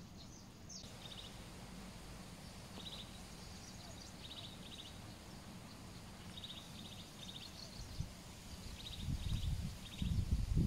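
Outdoor stream-bank ambience: short trilling chirps from a small bird repeat in twos and threes over a steady low hiss. Near the end, a low rumble of wind buffeting the microphone builds up.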